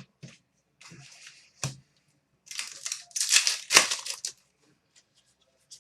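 Trading cards and their packaging being handled: a few light clicks and taps, then papery rustling and sliding scrapes of card stock about halfway through.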